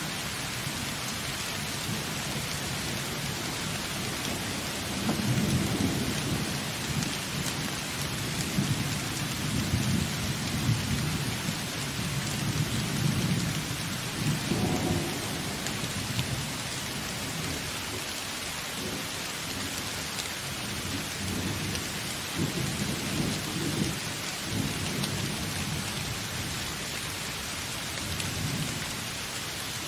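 Steady rain falling in a thunderstorm, with low thunder rumbling in rolling swells again and again from about five seconds in.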